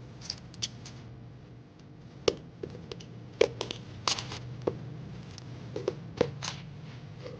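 Hands handling a camera lens and its packaging: irregular sharp clicks and light taps, about a dozen, over a low steady hum.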